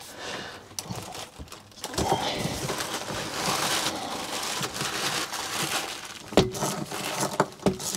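A plastic bag crinkling as it is handled, with a couple of sharper knocks near the end.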